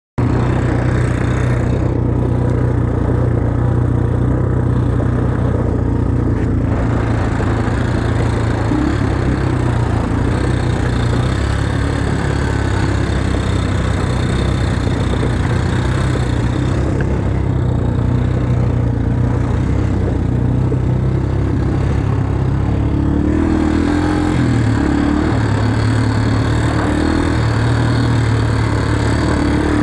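Quad bike (ATV) engine running steadily, its pitch rising and falling a few times near the end.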